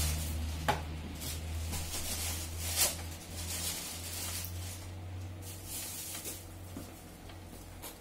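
Hard plastic clicks and knocks as a hair dryer's motor and fan unit is worked back into its plastic housing, one sharp click about a second in and a louder knock near three seconds. A low steady hum runs underneath.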